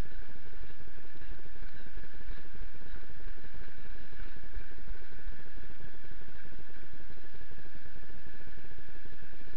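Steady rumbling and rustling noise on a body-worn camera's microphone as the wearer moves, with a faint constant high whine.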